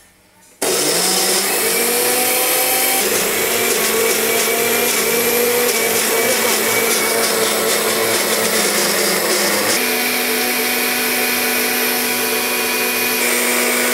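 Small personal blender grinding turmeric, onion and garlic: the motor starts suddenly about half a second in with a short rising whine, then runs steadily, its pitch stepping up slightly about ten seconds in.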